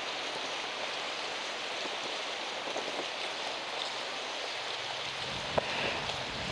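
Steady rushing noise of strong wind and harbour water, with a faint low hum under it and a single sharp knock near the end.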